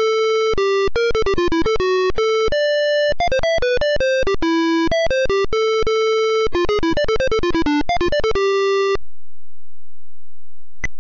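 Computer synthesizer playing back a melody recognised from a scanned handwritten score, one quick electronic note at a time, beginning on a held A and then G. It stops about nine seconds in, leaving a faint low hum and a brief click near the end.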